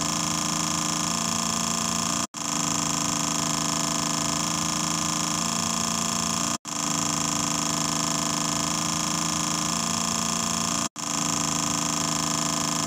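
A steady hum of several held tones, from low to very high, cutting out for an instant about every four seconds and starting again unchanged, like a repeating loop.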